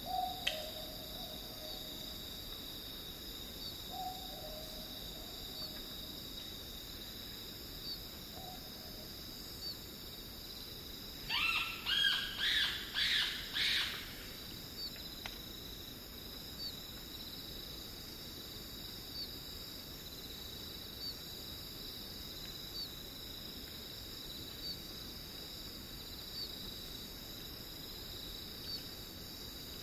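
Australian owlet-nightjar giving a quick run of about five high-pitched shrieks and squeaks, each rising in pitch, some eleven seconds in, after three short lower calls a few seconds apart. A steady high insect trill with a faint chirp about every two seconds runs underneath.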